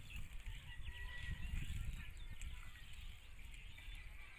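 Small birds chirping over a low, uneven rumble that swells about a second and a half in.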